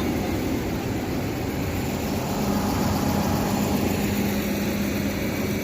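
Engine of sugar beet harvesting machinery running steadily, a constant mechanical drone with a low hum.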